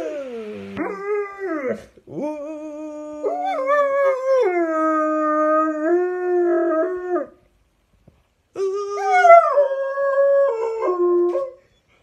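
Black German Shepherd howling: long drawn-out howls that glide and step in pitch, in three stretches with short breaks about two seconds and seven and a half seconds in.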